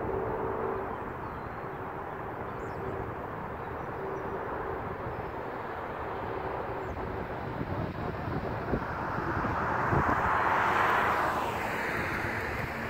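Steady outdoor background noise, with a vehicle passing at a distance: its sound swells about ten seconds in and then falls away in pitch as it goes by.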